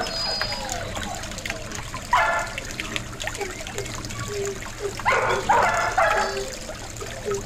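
Dogs barking in short volleys, one about two seconds in and a longer run around five seconds in, over the steady splashing of a garden pond fountain.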